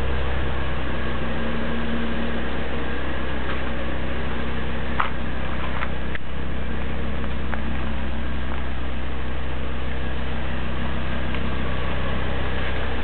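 A steady low mechanical hum with a constant tone in it, with a few faint clicks about five to six seconds in.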